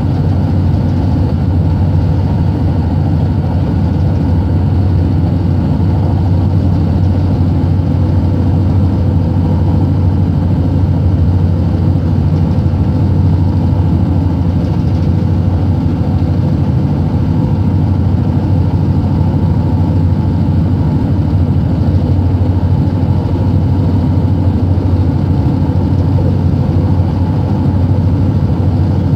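Steady low rumble of a passenger train running at speed, heard from inside the carriage.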